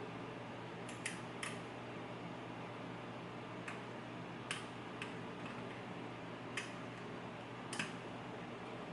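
Small, sharp clicks from a lock pick working the pins inside a pin-tumbler lock, about seven at irregular intervals over a steady faint hiss.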